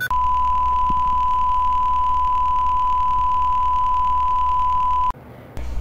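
Television test-card tone: a single steady beep at one unchanging pitch, held for about five seconds and then cut off abruptly.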